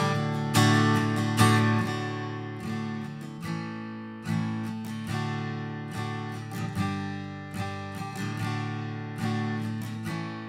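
Acoustic guitar strummed slowly, a chord every couple of seconds left to ring and fade between strums. It is recorded close on a Shure SM7B dynamic microphone with its presence boost engaged.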